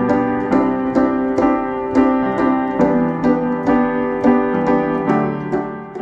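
Background piano music: evenly paced struck notes, about two a second, over held chords, with the bass stepping down about halfway through and again near the end.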